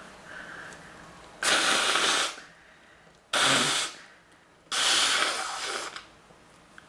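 A congested nose being blown hard, three forceful blows, each a loud rushing hiss. The last blow is the longest.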